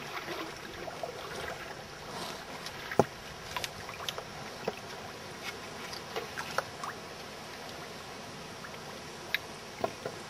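Water sloshing and lapping against the side of a canoe, with scattered light knocks and clicks, the sharpest about three seconds in, as a floating dead crocodile is prodded and shifted beside the hull.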